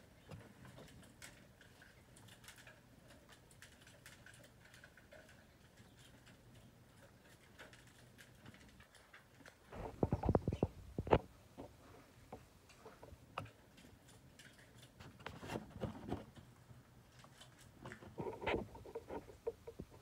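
Sparrows fluttering and hopping about on a balcony floor: faint light pattering and pecking, broken by short bursts of rapid wing flutter, the loudest about ten seconds in and two smaller ones later.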